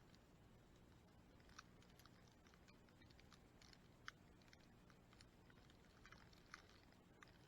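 Near silence with faint, scattered crackling clicks, a few a second, over a low steady hum.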